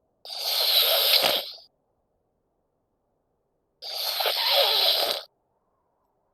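Snoring: two long snores about three and a half seconds apart, each lasting about a second and a half.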